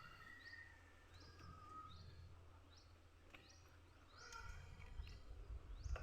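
Small birds chirping faintly: a string of short, high chirps, each dropping in pitch. A low rumble comes up about four seconds in.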